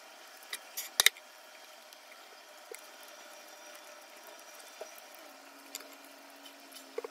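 A handful of light clicks and taps of wooden chopsticks and tableware on a plate and table during a meal, spread out over several seconds, the sharpest knock about a second in, over quiet room tone.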